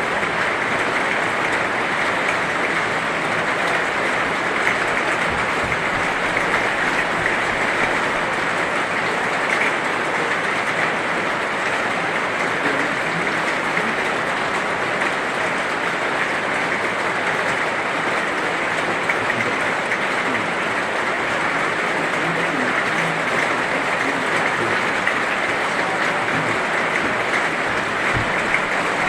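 Heavy rain falling steadily, a dense, even hiss of drops without let-up.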